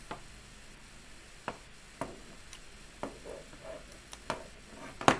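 Scattered sharp clicks and taps of small carbon-fibre drone frame parts and a screwdriver being picked up and set against a tabletop, the loudest near the end.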